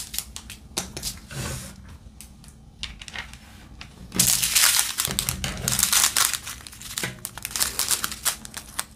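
Strip of sealed plastic diamond-painting drill bags crinkling as it is handled, with scattered soft rustles at first and louder, dense crinkling from about four seconds in.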